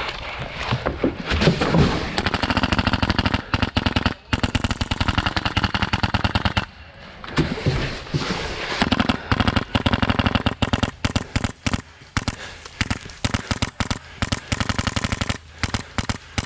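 Airsoft gun firing on full auto: a long burst of about four seconds, a second burst of about two seconds, then a string of short bursts, in the suppressive fire used to keep an opponent pinned down.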